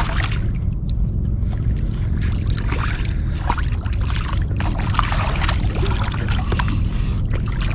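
Wind rumbling on the microphone over water splashing and lapping against a plastic fishing kayak, with a few small knocks.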